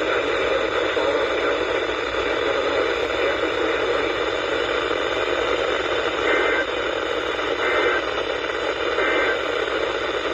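Steady hiss and static of a weak radio receiver. In the second half, three short two-tone data chirps come about 1.4 s apart, typical of an EAS SAME header.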